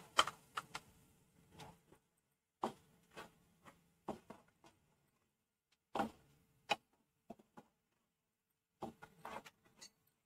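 Wooden spatula scraping and knocking against a steel kadai while stirring ginger-garlic paste into onion paste frying in oil: short, irregular scrapes and taps with quiet gaps between them.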